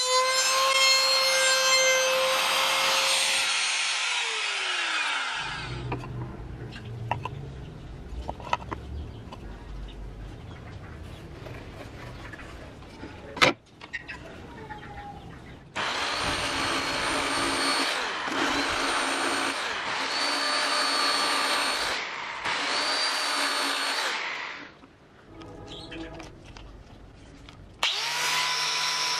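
Woodworking power tools at work. A tool's motor runs with a steady whine, then winds down about four seconds in. After a low hum with a few clicks, a machine cuts wood in several bursts over about nine seconds, and another tool starts up near the end.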